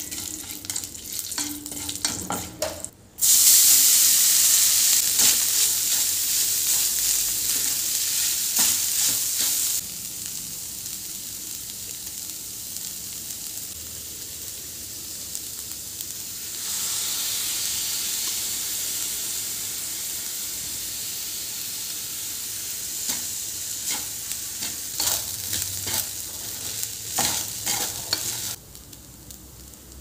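Mustard seeds, curry leaves and spices frying in hot oil in a stainless steel pan, stirred and scraped with a wooden spatula in scattered clicks. About three seconds in, a sudden loud sizzle starts that eases off around ten seconds, swells again around sixteen seconds, and gives way to more stirring clicks near the end.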